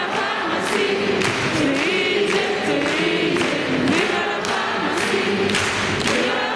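A group of people singing together into handheld microphones, over a steady beat of about two hits a second.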